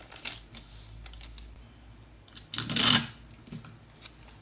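Paper pattern pieces being handled and pressed together: light scattered ticks and rustles, with one louder paper rustle of about half a second near the middle.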